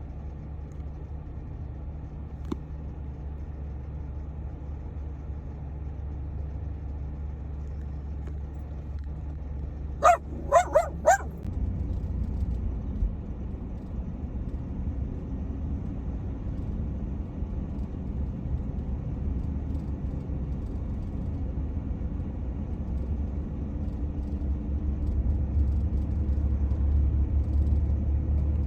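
Steady road and engine rumble inside a minivan's cabin while driving. About ten seconds in, a small dog barks four quick times, and the rumble grows louder just after.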